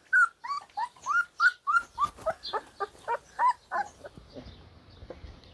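Puppies whimpering in a rapid series of short, high-pitched cries, about three a second, that die away about four seconds in.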